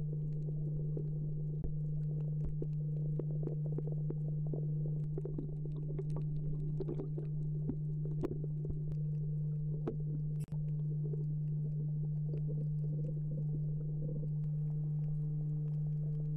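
Underwater sound heard through the camera: a steady low hum with fainter tones above it, and scattered clicks and ticks. There is a brief dropout about ten seconds in.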